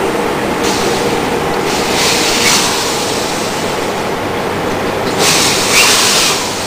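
Small lawnmower engine running steadily on HHO (oxyhydrogen) gas instead of petrol, with a few louder bursts of hiss over it.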